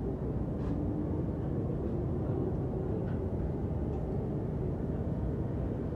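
Steady rumble of a JR Yamanote Line commuter train running, heard from inside the passenger car, with a couple of faint clicks.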